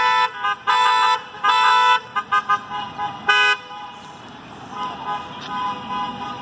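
Car horns honking in a run of bursts, some short and some about half a second long, from cars driving slowly past in a parade line. After about three and a half seconds the honking stops and only quieter traffic sound is left.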